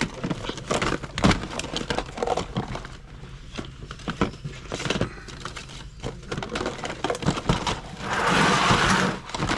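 Small hard objects clicking and knocking at irregular moments as they are handled, with a short rustling hiss near the end.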